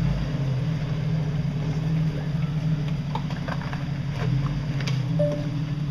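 1998 Jeep Cherokee XJ engine running steadily as it crawls over rock ledges, with a few short knocks and clicks partway through as the tyres work over the rocks.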